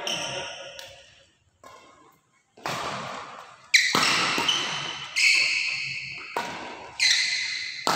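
Badminton rally: rackets striking the shuttlecock with sharp, ringing hits in a large hall. The hits come in quick succession from about two and a half seconds in, after a quiet second or so.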